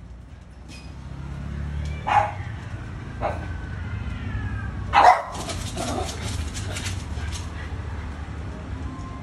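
Alabai (Central Asian Shepherd Dog) barking: two loud single barks about two and five seconds in, with a weaker one between them, over a steady low rumble. A quick run of clicks follows the second loud bark.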